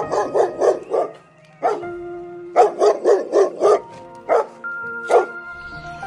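A dog barking in quick runs of short barks, a few single barks between them, over steady background music.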